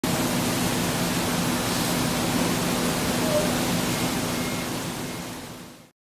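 Steady rushing noise of a banana packing shed, with a faint low hum under it, fading out over the last second or so.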